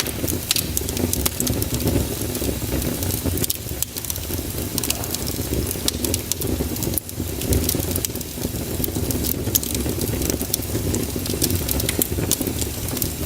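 Wood fire burning in a fireplace: many sharp crackles and pops at irregular moments over a steady low rumble of the flames.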